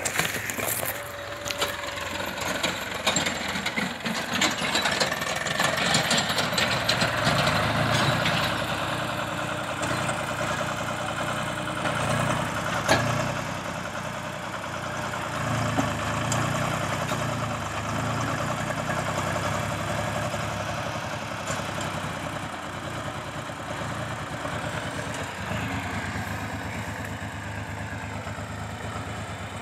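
Diesel engine of a JCB 3DX backhoe loader running under working load, its note rising and falling as it loads earth into a tractor trolley, with a single sharp knock about 13 seconds in.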